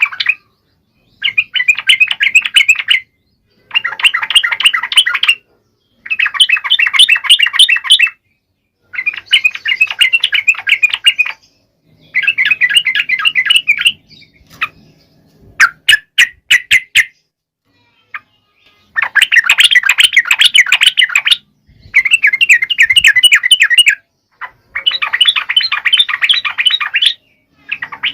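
Sooty-headed bulbul (trucuk) singing: a run of rapid-note phrases about two seconds long, repeated with short pauses between them, and a few separate sharp notes near the middle.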